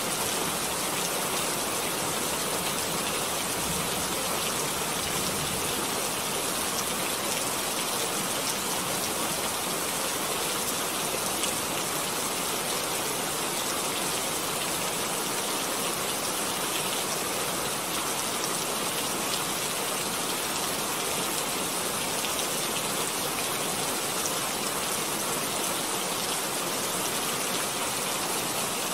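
A steady, even rushing hiss that holds the same level throughout, with no tones or rhythm.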